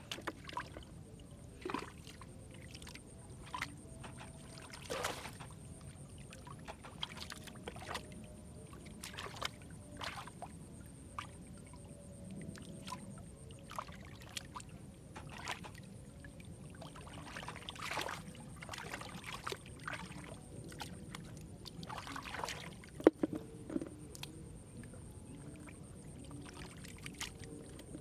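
Irregular splashing and sloshing of shallow muddy water as hands and feet work through the mud while catching catfish by hand, with a sharper splash about 23 seconds in.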